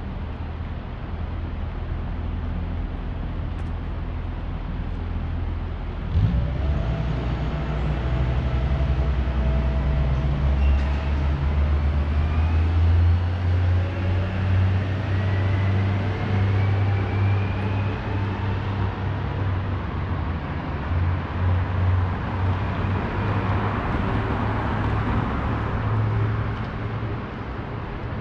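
City street traffic: a low engine rumble from passing vehicles, which gets louder about six seconds in, with a slowly rising whine partway through.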